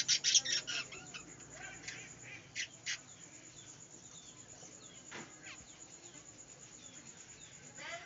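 A small flock of budgerigars chirping and chattering, with short gliding chirps throughout. A quick run of loud, sharp sounds comes in the first second, and two more follow about three seconds in.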